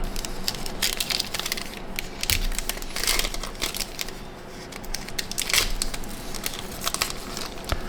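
Plastic wrapper of a trading card pack being torn open and crinkled by hand, with irregular crackling throughout.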